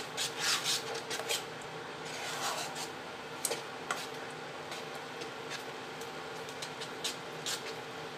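A spoon scraping and stirring a thick paste of cornflour and white glue around a non-stick kadhai as it heats and begins to thicken. The strokes are busiest in the first second or so, with a few light clicks of the spoon on the pan later. A steady hum from the running induction cooktop sits underneath.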